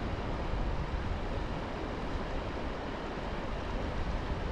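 Steady rushing of a fast river current over rocks, with wind rumbling on the microphone.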